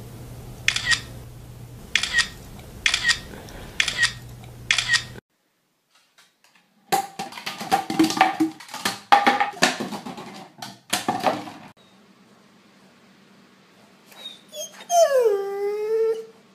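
A dog's sounds across several short pet clips: first a run of short sharp noises about once a second, then after a gap a burst of irregular yips and noises, and near the end a single drawn-out whine that falls in pitch.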